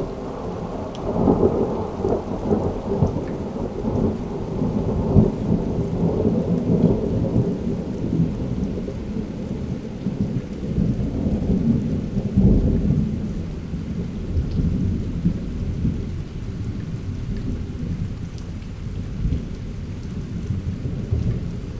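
Long rolling thunder: a deep, uneven rumble that swells and ebbs, loudest in the first half and dying down after about thirteen seconds.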